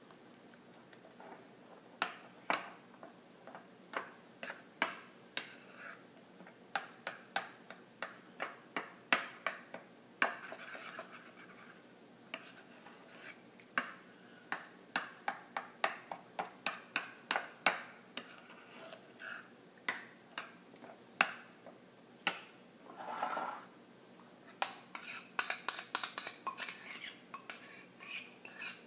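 A utensil knocking and clinking against a bowl while stirring a yogurt-and-spice marinade: a long run of irregular sharp clinks, with a couple of brief scraping sounds.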